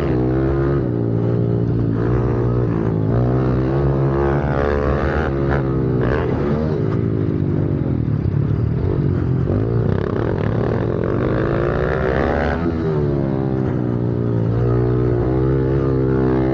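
Honda CRF110F pit bike's single-cylinder four-stroke engine racing on a dirt track. Its pitch rises and falls as the throttle is worked, dips low around the middle, then picks up again.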